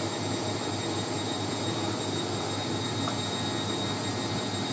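Hoover A3060 Electronic 1100 front-loading washing machine spinning at speed: a steady rushing drum-and-motor noise with faint high whining tones, running through the spin without a suds lock.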